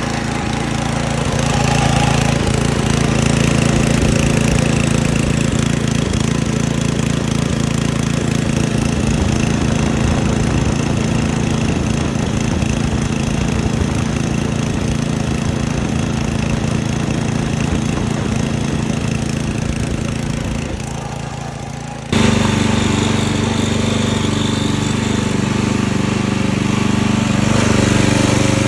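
Kohler engine on a Scag mower running steadily. The sound sags slightly about twenty seconds in, then changes abruptly about two seconds later and runs on.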